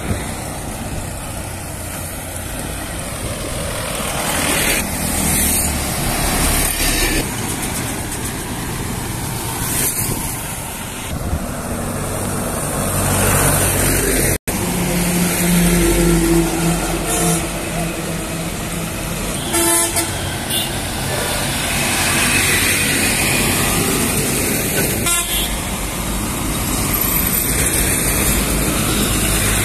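Heavily loaded trucks driving past one after another on a highway, their engines and tyres on the asphalt swelling and fading with each pass. Horns honk a few times along the way.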